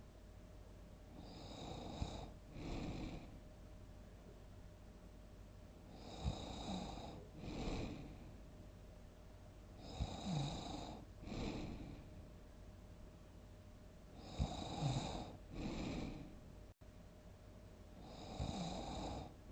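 A sleeping person snoring, one snore about every four seconds, each followed at once by a shorter second sound, five times over.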